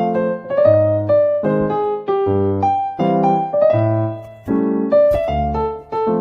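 Background music: a light piano tune with bass notes, a melody moving in short phrases.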